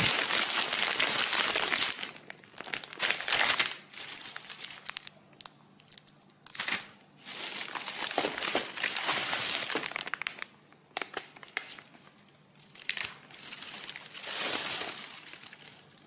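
Thin plastic carrier bags rustling and crinkling as hands rummage through grocery shopping. The sound comes in irregular bursts with short quieter gaps between them.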